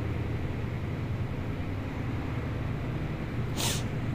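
Wooden spatula stirring and scraping tomato-onion masala in a metal kadai, over a steady low rumble. There is one sharper scrape about three and a half seconds in.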